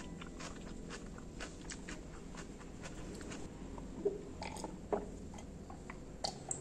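Close-miked mouth sounds: chewing with many small wet clicks, then, about four seconds in, a few swallows of water drunk from a glass.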